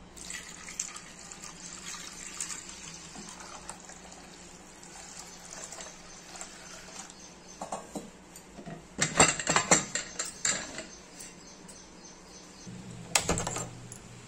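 Water pouring and splashing into an aluminium pressure-cooker pan of lentils. It is followed by loud metallic clanks as the pot is handled, about nine seconds in and again as the lid goes on near the end.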